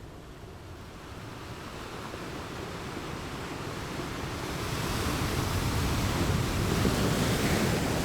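Ocean waves on a beach: the surf's rush builds over several seconds and peaks near the end as a wave breaks and washes in.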